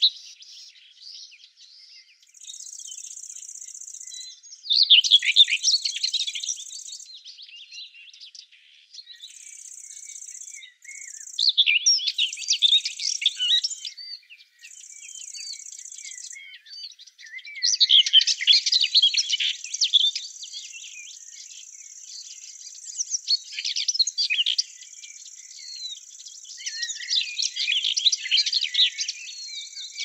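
Small songbirds chirping and twittering in several lively bouts. A steady high-pitched buzz comes and goes in stretches of a second or two, then runs on without a break from about two-thirds of the way in.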